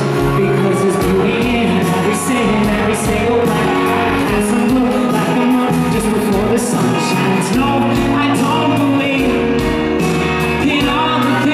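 Loud live pop-rock band with drums and electric guitar, a man singing into a handheld microphone over it, heard through the hall's PA.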